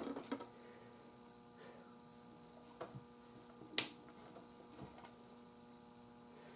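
Faint steady electrical hum with a few light clicks and taps from handling on a workbench, the sharpest one almost four seconds in.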